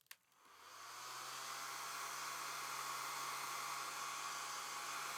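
Hand-held hot-air blower switched on with a click, its fan spinning up over about a second to a steady hiss with a low hum, used to warm the cracked spruce top of an acoustic guitar.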